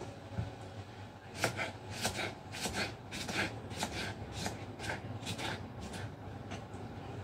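Kitchen knife slicing tomatoes on a wooden cutting board: a short cut-and-tap on the board about every half second, growing fainter near the end.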